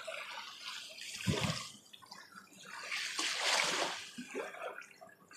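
Water trickling and splashing softly, rising and falling in two gentle swells, with a brief low sound a little over a second in.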